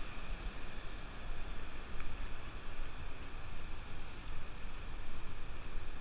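Ocean surf washing up onto the sand, with a low rumble of wind buffeting the microphone.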